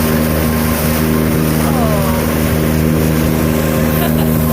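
Boat's engine running steadily under constant wind and water noise. A brief falling voice cry comes about two seconds in.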